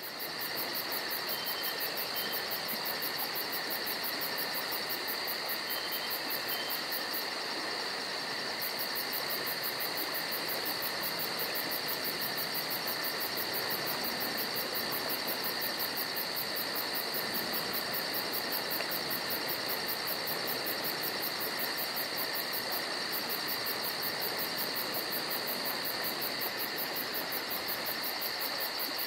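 Night insects, crickets, trilling steadily in several overlapping high-pitched layers, one of them a very high, fast, even pulsing.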